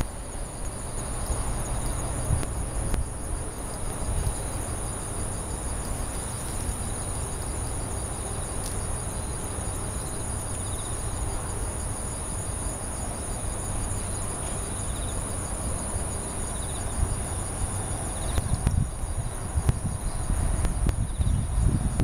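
Autumn insects singing: a steady high-pitched trill with fainter pulsing chirps beneath it, over a low rumble that grows louder near the end.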